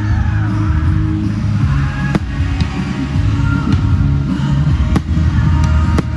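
Fireworks exploding over loud music with a heavy low beat from the display's sound system; three sharp bangs stand out, about two, five and six seconds in.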